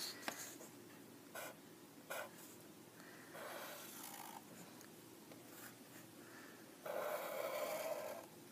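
Sharpie marker tip squeaking and scraping across paper as lines are drawn, in a few short strokes and one longer, louder stroke near the end.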